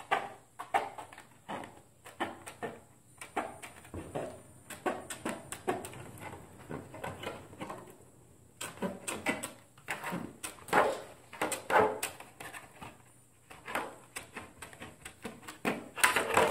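Aviation snips cutting along the edge of a white ABS plastic armor piece: a quick series of sharp clicking snips, pausing briefly about eight seconds in.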